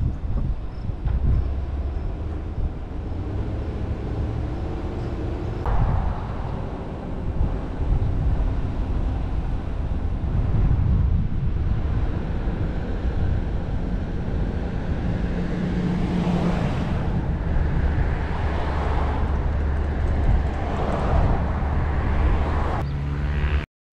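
Car driving along a road: steady low engine and road noise, with gusts of wind noise swelling and fading over it.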